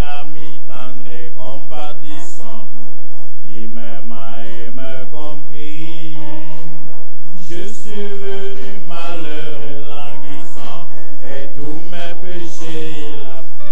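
Loud, chant-like worship singing: voices holding and gliding between long notes, led by a man singing into a handheld microphone.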